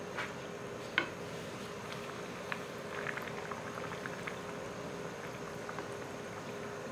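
Pieces of vettu cake dough deep-frying in hot oil: a steady bubbling sizzle with scattered small pops, and a sharp click about a second in.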